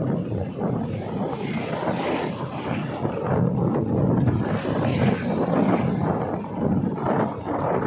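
Wind buffeting the microphone on a moving vehicle: a loud, gusty rumble that swells and eases throughout.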